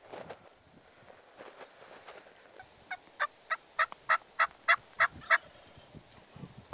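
A series of about nine turkey yelps, short evenly spaced notes at roughly three a second, starting a little under halfway through and ending shortly before the end.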